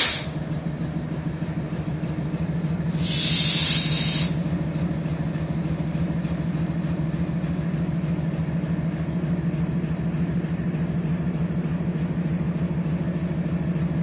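The ALCO 16-cylinder diesel engine of a WDG3A locomotive idling with a steady, low pulsing drone. About three seconds in, a loud hiss of released air lasts about a second.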